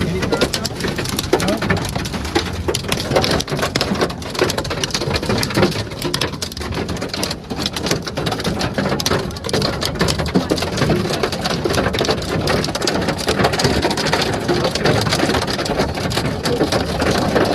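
Heavy thunderstorm rain pelting the car, a dense, steady patter of drops hitting the roof and glass, heard from inside the vehicle.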